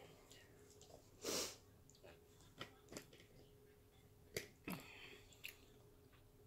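Near silence with close-up mouth and breath sounds of someone eating: a short breathy noise a little over a second in, then several faint clicks and smacks.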